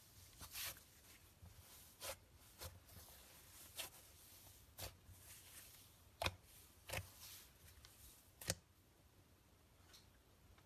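Fluffy slime being squeezed and poked by hand, giving faint, irregular sticky pops and crackles that stop about two seconds before the end.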